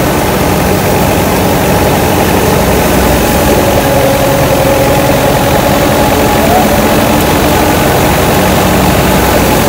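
Shaft-driven wheat thresher running at full tilt as sheaves are fed into it: a loud, steady mechanical drone with a hum that wavers slightly in pitch.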